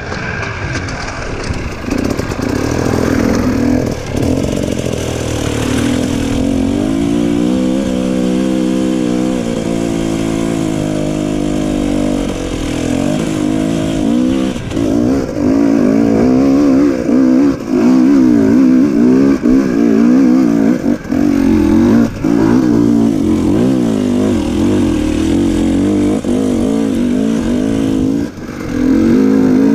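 Dirt bike engine running on a trail ride, its pitch wavering up and down as the throttle is worked. A few short drops in level come where the throttle closes, the longest near the end.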